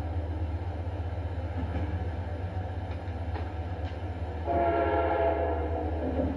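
Amtrak train passing behind its Genesis diesel locomotive with a steady low rumble. About four and a half seconds in, the locomotive's horn sounds one blast of about a second and a half, the loudest thing here.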